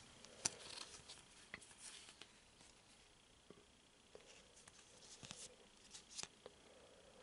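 Near silence, with faint scattered clicks and soft rustles of trading cards being handled.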